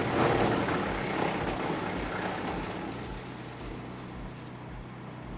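Wood chipper's 15 hp Lifan four-stroke petrol engine running. A broad rushing noise in the first couple of seconds fades away, leaving a steady low hum.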